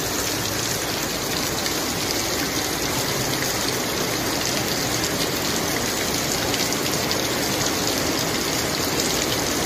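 Heavy rain pouring steadily onto a flooded street, mixed with the rush of floodwater flowing through it.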